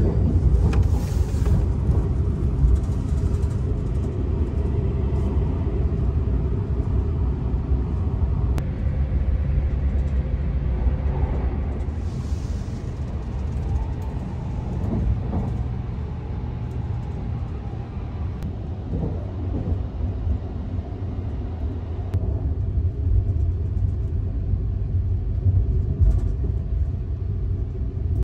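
Steady low rumble of the Sunrise Seto sleeper train, a 285 series electric multiple unit, running along the line, heard from inside the carriage.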